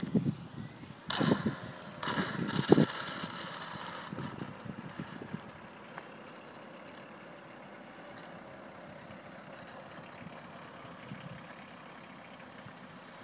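Radio-controlled Yak 54 model aerobatic plane's engine running as it comes in to land, with a few loud thumps in the first few seconds, the loudest near three seconds in. After about four seconds it settles to a quieter, steady engine sound at low throttle as the plane sits on the runway.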